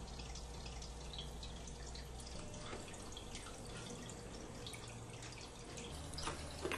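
Faint, scattered dripping of water over a low room hum.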